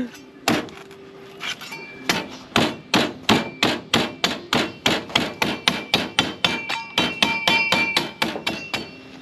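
Rusty machete chopping repeatedly into a young coconut's husk: a steady run of strikes, about three or four a second, some with a faint metallic ring from the blade.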